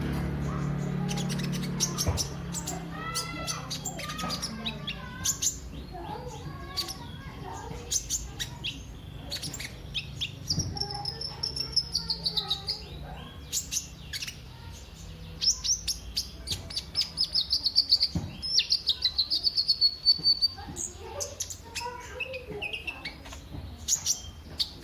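Kolibri ninja, a sunbird, singing: a rapid string of high chirps, sharp clicks and twittering trills, busiest in the second half.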